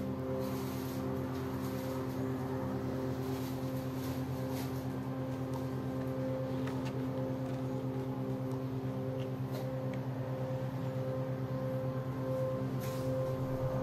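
Low, steady drone of several held tones with a slight pulse, from the drama's soundtrack underscore.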